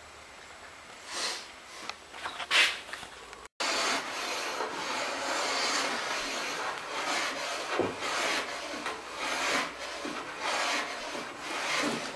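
Hand plane shaving a wooden slab tabletop: repeated rasping strokes of the blade over the wood, a couple of single strokes at first, then a steady run of strokes after a brief break.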